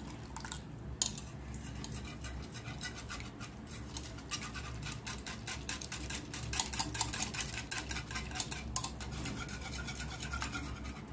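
Metal wire whisk beating eggs and milk in a plastic bowl: fast, even clicking and scraping of the wires against the bowl.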